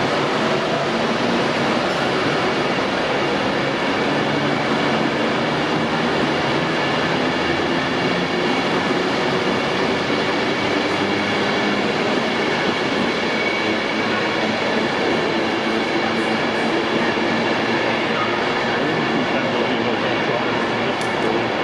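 Electric or diesel express passenger train pulling out along a station platform: a steady running noise with faint steady tones.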